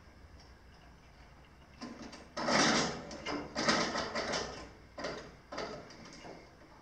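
Metal rattling and clicking from hand work on the jointer's chain drive, the roller chain and idler pulley being handled, in a cluster of bursts from about two seconds in, loudest just after halfway.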